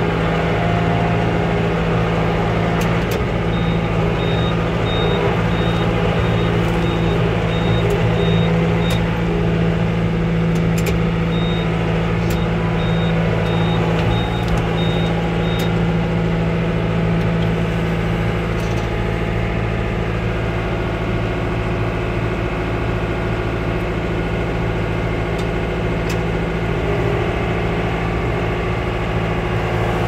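Yanmar EG83Y tractor's diesel engine running steadily under load while pulling a plough through paddy soil. A rapid high beeping sounds twice for several seconds in the first half.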